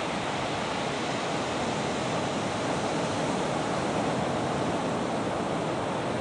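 Ocean surf breaking close to the shore, a steady, unbroken wash of noise with no single wave crash standing out.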